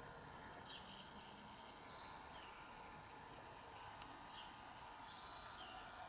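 Near silence: faint room hiss with a few brief, faint, high chirps scattered through it.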